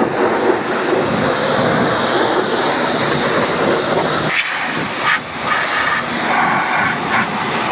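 Water spraying hard from a hose spray wand onto a mower's metal deck and body: a steady hiss of spray with water splashing off the surfaces. About four seconds in, the sound turns thinner and brighter.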